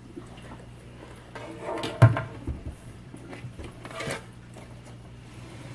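Fluval G3 canister filter's plastic housing being set down and shifted into place inside a tank-stand cabinet, knocking and scraping, with the loudest knock about two seconds in and another about four seconds in. A steady low hum runs underneath.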